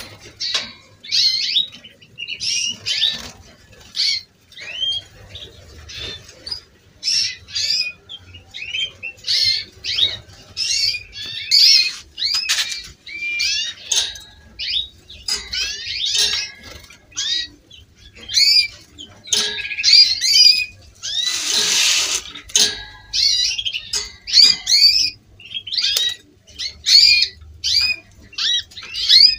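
Caged canaries chirping and singing: quick, repeated whistled notes and rising and falling glides, with one short rustling burst about two-thirds of the way through.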